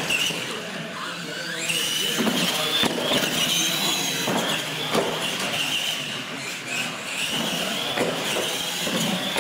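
Radio-controlled monster trucks racing, their motors and gears whining high, the pitch rising and falling as the throttle is worked, with a few knocks as the trucks hit ramps or the floor.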